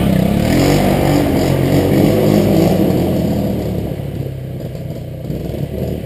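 ATV engine revving as the quad pulls away on a dirt trail, its pitch rising early on, then fading with distance over the next few seconds, leaving a lower engine sound.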